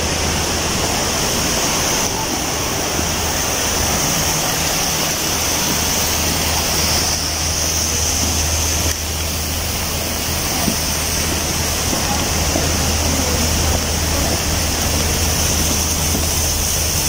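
Steady rush of splashing water from a large indoor fountain and stepped cascade, over a low steady hum.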